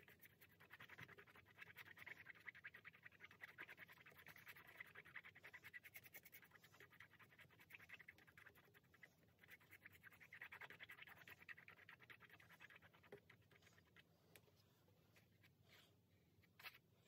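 Faint, fast scratchy rubbing of a paintbrush scrubbing acrylic paint onto the canvas, coming in waves and fading near the end, with one small knock shortly before the end.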